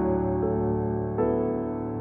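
Outro music of sustained piano chords. A new chord is struck a little over a second in and rings on, slowly fading.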